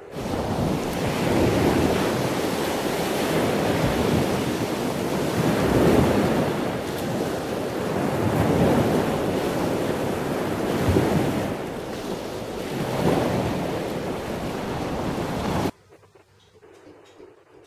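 Sea surf, a loud rushing of waves that swells and ebbs every few seconds, cutting off suddenly near the end.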